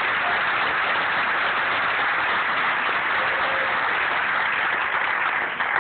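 Audience applauding, a steady, dense clapping that lasts until the next speaker begins.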